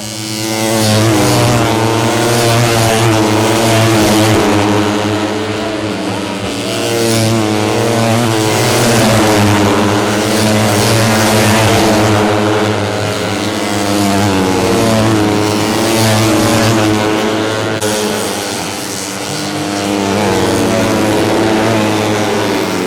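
Racing four-stroke 150cc underbone motorcycle engines revving hard, several at once. Their pitch climbs and drops with the gear changes, and the sound swells and fades in waves as the bikes pass.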